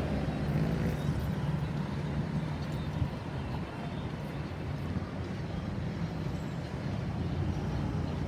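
Road traffic noise: a steady low engine hum from passing vehicles, with no siren clearly heard.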